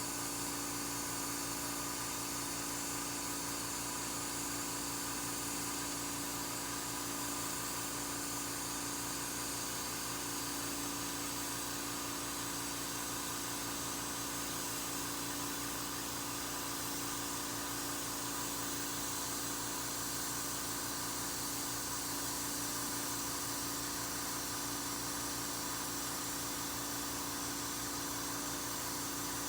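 A small motor running steadily, a constant hum with several fixed tones over a hiss.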